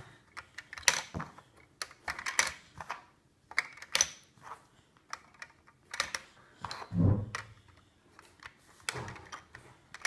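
LEGO pieces dropped one by one into a LEGO refrigerator model, landing with a series of sharp, irregular plastic clicks and clatters. A duller thump comes about seven seconds in.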